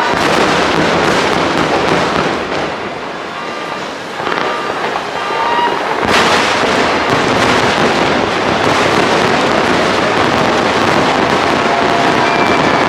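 A fireworks display going off: a dense, continuous run of bangs and crackling bursts, with a large burst about six seconds in.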